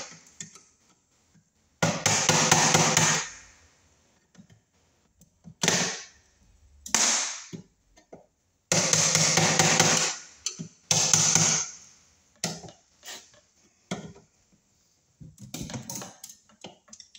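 Screwdriver and pliers hammering at a 3/4-inch knockout in a steel electrical panel box to punch it out: bursts of rapid metallic taps, the longest lasting about a second and a half, with shorter bursts and single knocks between them.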